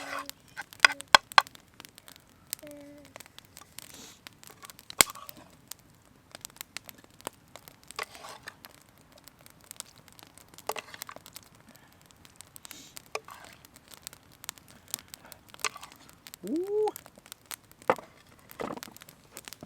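Irregular sharp cracks and crackling with some crinkling, scattered throughout with a few louder snaps near the start. A short rising voice-like call comes near the end.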